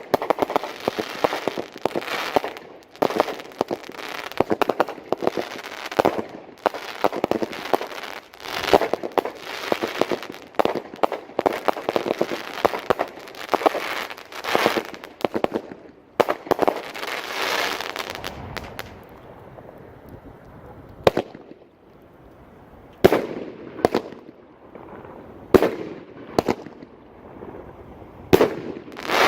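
Consumer firework cake (Gold Wave by Big Fireworks) firing: a dense, rapid run of shots and crackling bursts for about the first eighteen seconds, then separate single bangs a second or two apart toward the end.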